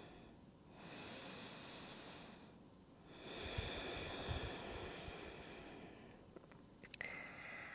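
A person breathing slowly and softly through the nose: two long breaths, the second longer, with a few faint clicks near the end.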